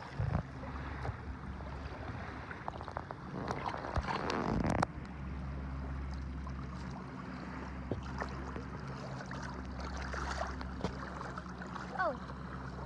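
A boat motor running steadily with a low hum, under noise from the shallow water and wind. There is a louder rush of noise about four seconds in.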